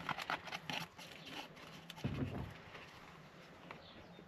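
Light clicks and rustling of wiring being fed through a plastic steering wheel, with a low thump about two seconds in.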